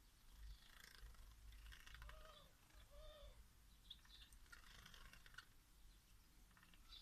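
Faint splashing and wing-fluttering of society finches bathing in a shallow water dish, in irregular bursts of small patters. Two short soft calls come about a third and halfway through.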